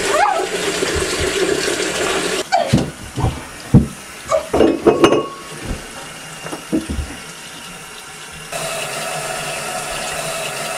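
Water running steadily, then a few seconds of irregular splashes and knocks mixed with short muffled cries. About eight and a half seconds in, a bathroom faucet starts running a thin steady stream into a sink.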